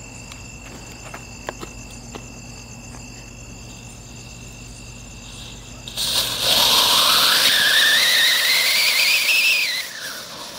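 Crickets chirping steadily, then about six seconds in a stickless siren rocket planted in the ground ignites. It burns like a fountain with a loud hiss and a whistle that rises in pitch for about three and a half seconds, then drops and cuts off near the end.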